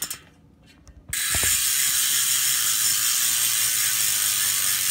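Hope Pro 4 single-speed rear hub freewheeling: its freehub pawls ratchet in a loud, fast, even buzz. After a short quiet moment with a couple of clicks, the buzz starts about a second in and holds steady.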